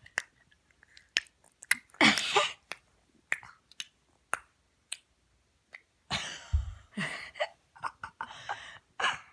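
A baby making mouth noises: a string of sharp clicks and smacks, with a few louder breathy bursts of blowing and sputtering.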